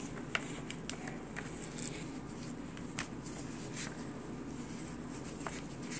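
Chalk drawing on felt: faint scratching strokes and a few light ticks over a low, steady room hum.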